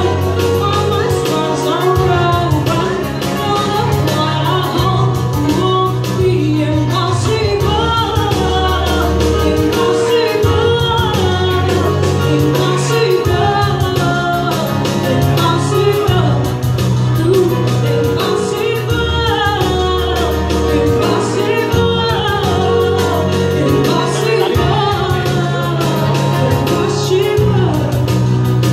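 Live amplified singing over an arranger keyboard's full backing accompaniment (organ tunggal): a woman sings a melody into a microphone while the keyboard plays chords and a steady bass line.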